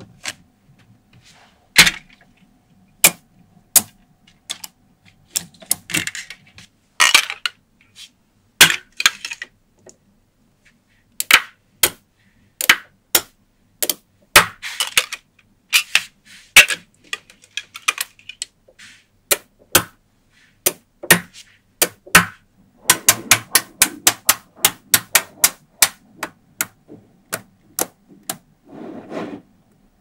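Small metal magnetic balls clicking sharply as they snap onto one another, in irregular single clicks, with a dense run of rapid clicks about three-quarters of the way through and a few brief scraping rustles as rows of balls are slid and pressed into place.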